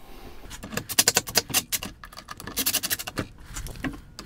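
Cordless drill driving pocket screws into particle board: two spells of quick clicking and scratching, about a second in and again near three seconds.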